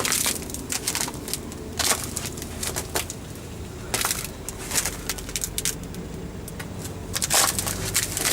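Irregular crunching and crackling, a sharp crunch every second or so, over a low steady hum.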